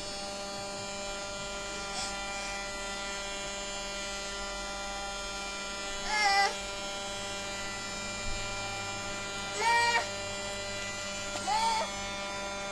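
Battery-powered toy vacuum cleaner's small electric motor running with a steady hum. Short voice sounds come over it three times, about six, ten and eleven and a half seconds in.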